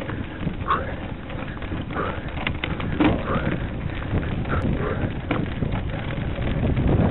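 Wind rumble and handling noise on a handheld camera's microphone as the camera is carried along, growing louder near the end, with a few brief faint calls or shouts.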